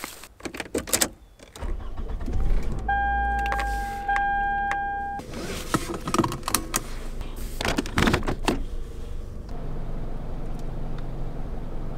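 Getting into and starting a car: door and key clatter, the car's electronic warning chime sounding for about two seconds with one short break, and the engine running. From about nine seconds in there is a steady low drone of the vehicle.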